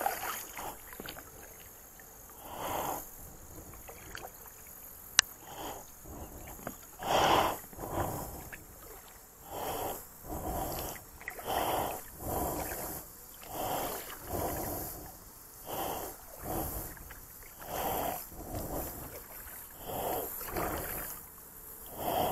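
Paddle strokes swishing through shallow water beside an inflatable kayak, about once a second. One sharp click comes about five seconds in.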